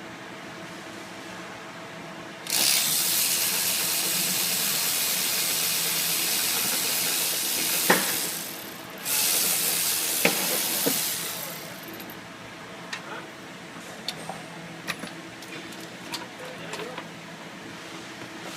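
Two long blasts of pressurized spray hissing, the first lasting about six seconds and the second about two and a half, followed by a few sharp clicks and light taps of tools.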